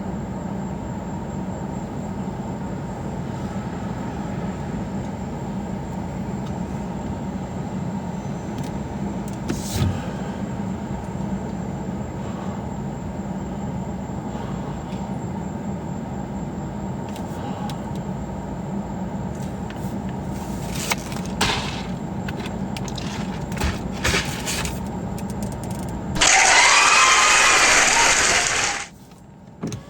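Steady low rumble of a car heard from inside the cabin, with a few light knocks. Near the end a much louder rushing sound lasts about three seconds, then cuts off.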